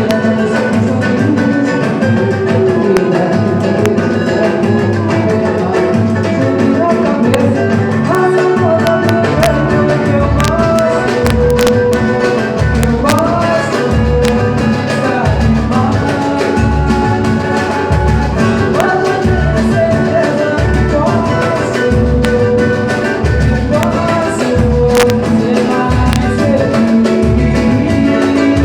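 Samba pagode music: singing over a band with strummed strings, and a steady low drum beat coming in about a third of the way through.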